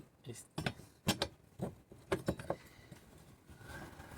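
Sailboat winch parts clicking and knocking as they are handled and fitted back together during reassembly: a run of short light clicks over the first two and a half seconds, then quieter handling.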